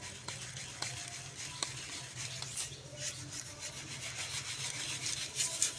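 Dry, crumbly lumps being crushed and crumbled, giving a dense stream of small gritty crackles and rubbing, with a louder burst of crunching near the end.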